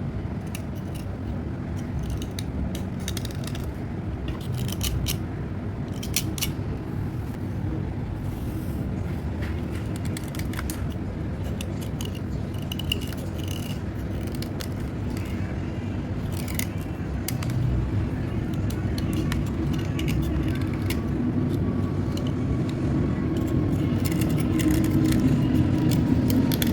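Slate pencils being handled and scraped: short scratchy scrapes and clicks come and go over a steady low rumble.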